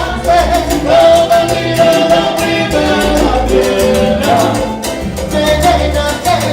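Salsa orchestra playing an instrumental passage between sung verses, with a repeating bass line, sustained melody and steady percussion.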